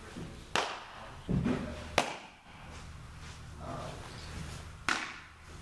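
Baseballs smacking into leather gloves: three sharp pops about half a second in, two seconds in and near the end, each with a short echo, and a duller thud between the first two.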